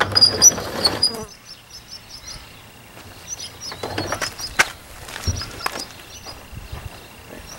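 Old wooden barn door scraping as it is pushed open during the first second, then a few knocks of wood and steps about four to five seconds in. Small birds chirp throughout.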